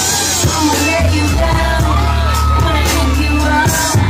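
Loud live music: a singer's voice over a beat with a heavy bass line.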